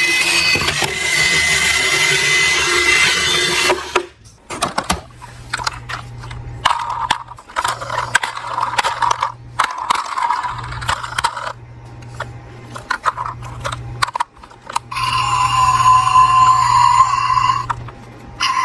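Toy cars being handled, with many short clicks and scrapes of small hard parts over a steady low hum.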